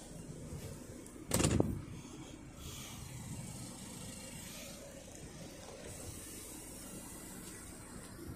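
Steady low hum inside a car cabin, with one loud short knock about a second and a half in.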